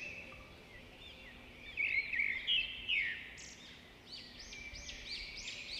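Small birds chirping in many quick, overlapping calls, loudest about two to three seconds in.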